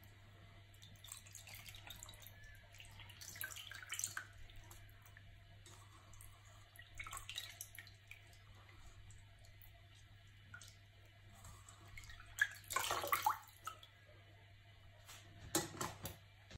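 Hands swishing and squeezing raw mutton pieces in a steel pot of water while washing them: quiet splashing and dripping, with a few louder sloshes, the biggest about thirteen seconds in and another near the end.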